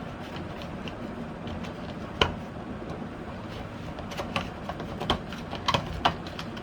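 Scattered clicks and taps of small plastic camera mounting accessories and their packaging being handled, the sharpest about two seconds in and a cluster of them between four and six seconds, over a steady low hum.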